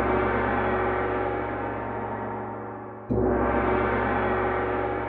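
A gong ringing and slowly fading, then struck again about three seconds in and ringing on.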